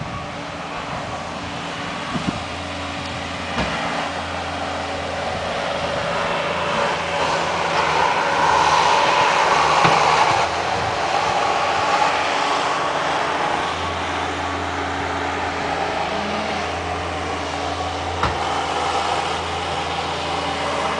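Skid-steer loader's engine running steadily, louder around the middle, with a few sharp knocks and clanks from the machine at work.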